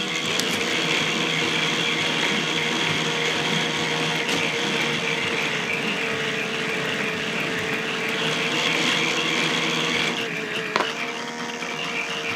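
K'nex electric motors and plastic gear trains of a shaft synchronizer running: a steady motor whine with a fast, even clicking of plastic gear teeth, and one sharper click near the end.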